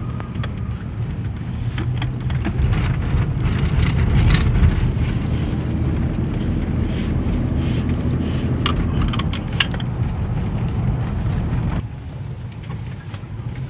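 Car engine and road noise heard from inside a moving car: a steady low rumble. A few sharp clicks come about eight to ten seconds in, and the sound drops suddenly quieter near the end.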